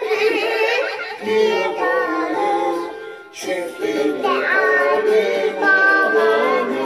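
A young girl singing a children's song to musical accompaniment, her voice breaking off briefly a little over three seconds in before she sings on.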